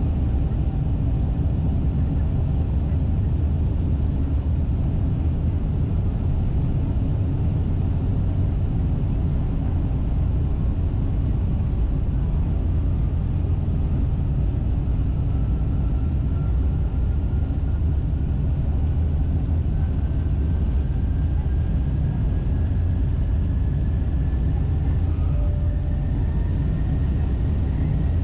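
Cabin noise of a Boeing 747-8's four GEnx-2B turbofan engines at takeoff thrust: a steady low rumble. A faint whine slowly rises in pitch through the second half.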